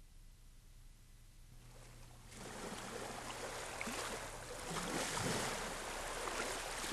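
Ocean surf washing, fading in from near silence about two seconds in and slowly growing louder, with gentle swells.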